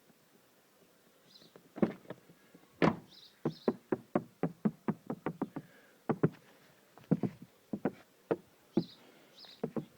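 Mazda 3 door handle pulled and released again and again, starting about two seconds in, its latch giving sharp clicks up to about three a second with no squeak or creak. The handle's mount has been padded with Madeline tape and its spring greased with solidol.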